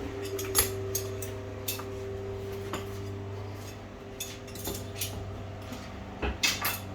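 Metal clips of a wooden shipping crate clinking and clicking as they are pried off and handled, in scattered irregular clinks over a steady low hum.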